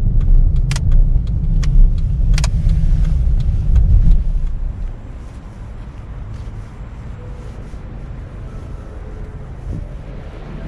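Car running, a low road rumble with a few sharp clicks, that falls away to a much quieter hum about four and a half seconds in.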